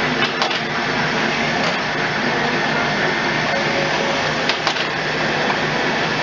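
Traub A25 cam automatic lathe running, a steady dense mechanical noise as it machines a brass nut blank, with a few sharp clicks about a quarter second in and again around four and a half seconds in.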